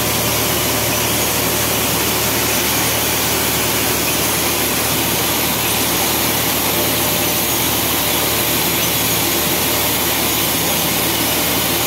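Fortified rice kernel production machinery running: a loud, steady even hiss with a low hum underneath, unchanging throughout.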